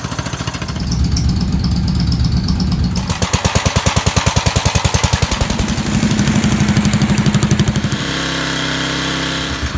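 Small gasoline engines running in a string of short clips, among them a garden tractor and a portable generator. Each one runs with an even pulsing beat, and the sound changes abruptly every couple of seconds as one engine gives way to the next.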